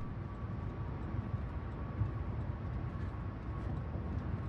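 Steady low rumble of background noise with a faint, thin, steady tone above it.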